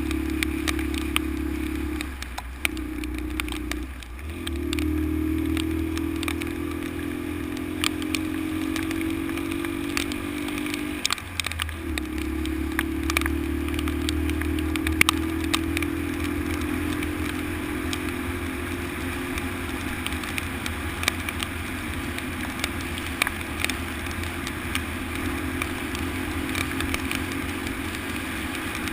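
Honda XL125 single-cylinder four-stroke motorcycle engine running steadily under way, dipping briefly about two, four and eleven seconds in as the throttle is eased, with scattered sharp clicks and rattles from the bike on a rough road.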